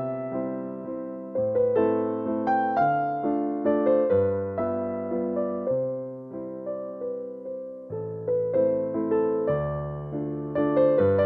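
Background piano music: a slow, gentle melody of struck notes, each fading away after it sounds.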